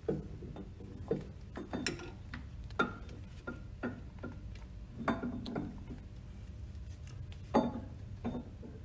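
Irregular metal clicks and light knocks, about ten in all, as parts are handled around the pump shaft inside the motor stool of a Grundfos NBS pump during split-coupling assembly. A steady low hum runs underneath.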